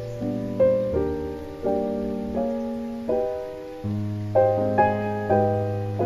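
Background piano music: struck chords and notes, each fading after it is played.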